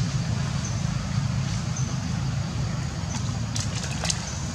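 Steady low outdoor rumble, with a few sharp crackles about three and a half to four seconds in.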